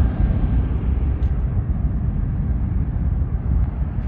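Airbus A319's jet engines at takeoff power during the takeoff roll: a deep, steady rumble that eases slightly as the plane moves away.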